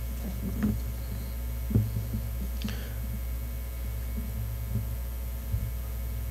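Steady low electrical hum in the sound system, with a few soft knocks and a short paper rustle as Bible pages are handled on the lectern near the microphones.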